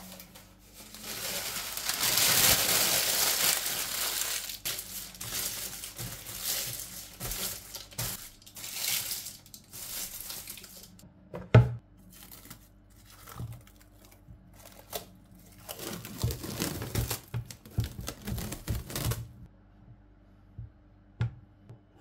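Baking paper and the wrapping of a frozen cookie-dough log crinkling and tearing as they are handled, loudest in the first few seconds. There is a single sharp knock about halfway through and more rustling later, over a faint steady hum.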